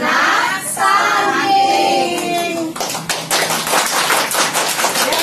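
A group of children and women sing the last line of a short song together, holding a final note until about halfway through. Then they break into steady hand-clapping.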